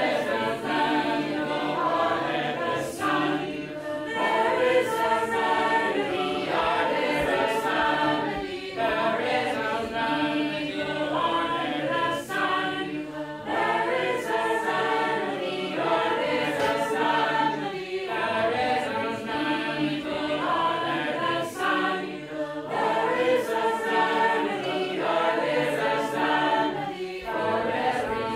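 A mixed choir of men's and women's voices singing together in a steady, continuous song.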